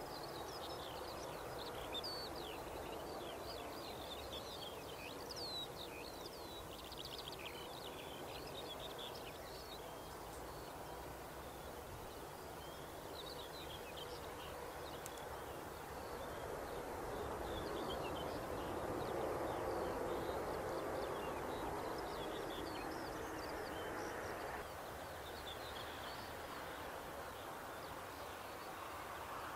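Small birds chirping in quick, scattered calls over a steady outdoor noise. The background noise grows louder past the middle, then drops suddenly near the end.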